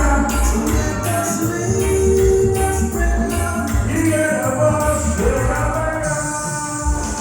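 Upbeat Latin dance music with a steady bass beat, tambourine- or shaker-style percussion and some singing.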